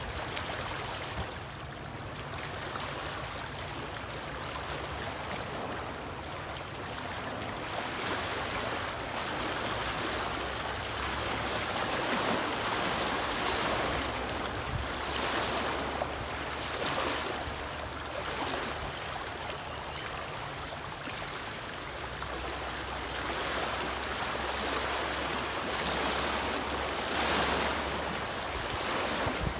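Small choppy lake waves lapping and splashing against a rocky shoreline: a steady wash that swells again and again as each wave breaks on the rocks.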